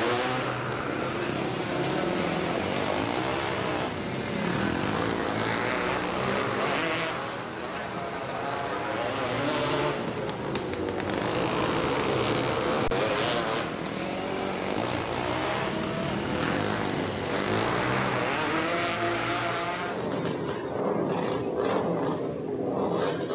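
Dirt-track motorcycle engines revving up and down as the bikes race round the oval, the pitch repeatedly rising and falling. Near the end the sound cuts abruptly to a thinner one.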